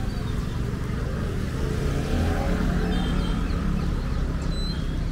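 A motor vehicle engine passing close by, swelling to its loudest around the middle, over a steady hiss of rain.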